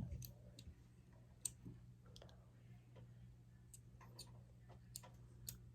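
Scattered faint metallic clicks, a second or so apart, of a handcuff key being fumbled at the cuff's keyhole, over a low steady hum.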